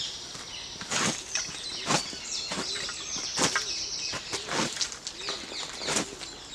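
Work boots scuffing and kicking loose debris across the dirt of a fire pit, a sharp scrape about once a second, with songbirds calling throughout.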